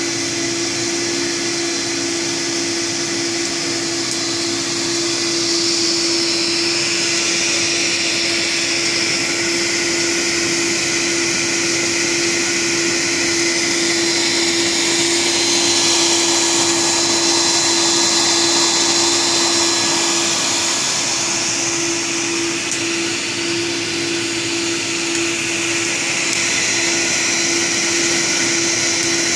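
Home-made coffee roaster running: a Skil 2000 W heat gun blowing hot air into an insulated stainless steel pot while an egg-beater motor stirs the beans. A steady rushing air noise with a constant motor hum.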